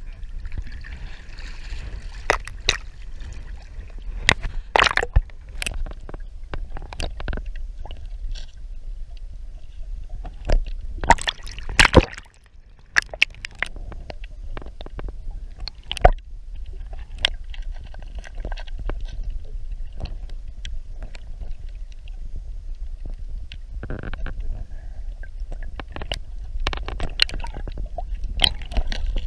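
Water sloshing and splashing, with sharp knocks here and there, the loudest about twelve seconds in, over a steady low rumble of wind on the microphone.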